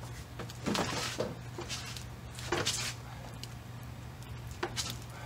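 Someone straining to push a car on wheel dollies: three short scuffing, rustling bursts of effort, with a steady low hum underneath.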